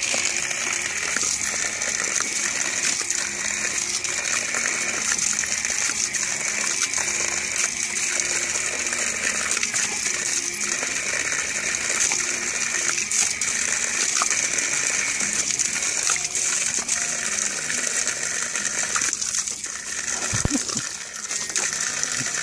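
Water from a garden hose gushing out and splattering onto wet grass and onto a dog biting at the stream: a steady rush of spray with small splashes throughout.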